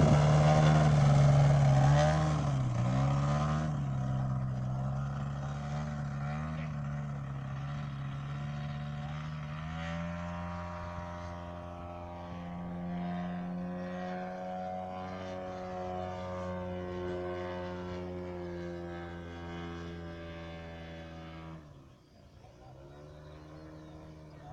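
Engine and propeller of a large-scale RC biplane in flight. It is loud as the plane passes close at the start, with the pitch dipping and wavering, then fades as it flies away. About ten seconds in, the engine note rises and holds steady, then drops suddenly near the end as the throttle comes back.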